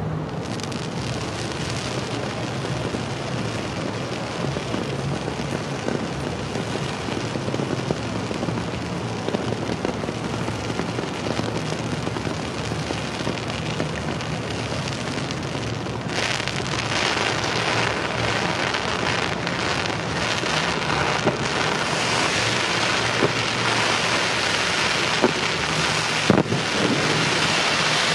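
Ground-level fountain fireworks spraying with a steady rushing hiss that starts abruptly and grows louder about halfway through, with a few sharp pops near the end.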